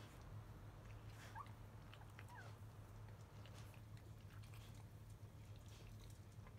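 Faint suckling of newborn Labrador retriever puppies nursing: soft smacking clicks, with two brief high squeaks about one and two seconds in, over a low steady hum.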